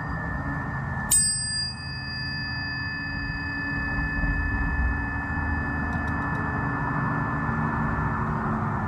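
Tuning forks ringing: one fork's high tone rings steadily, and about a second in a second fork is struck with a brief metallic clang, then rings on in a higher tone alongside it. A low rumble runs underneath.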